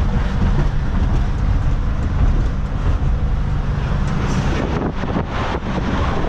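The cabin of a 1978 Volkswagen Westfalia bus on the move: its air-cooled flat-four engine running steadily under road and wind noise, with a few knocks and rattles in the second half.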